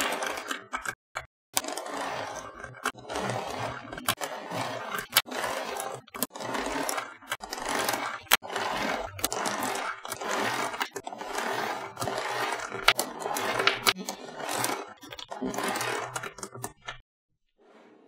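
Small magnetic balls rattling and scraping against each other and the tabletop as rows of them are pressed and snapped together into a flat sheet, with many sharp clicks as balls snap into place. The clicking stops shortly before the end.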